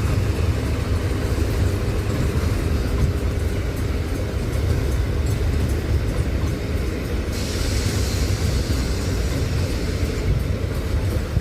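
Car-carrier freight train running through a station with a steady low rumble. A hiss joins in about seven seconds in and stops about three seconds later.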